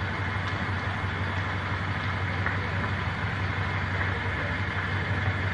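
Steady low running of the convoy's engines, a coach and cars crawling at walking pace, as a continuous hum under a steady background hiss.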